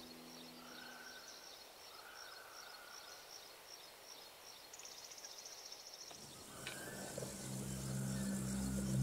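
Faint outdoor ambience of small birds chirping, with a fast insect-like trill about five seconds in. In the last few seconds a low steady hum comes in and grows louder.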